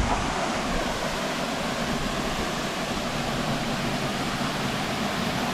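Waterfall pouring, a steady even rush of water.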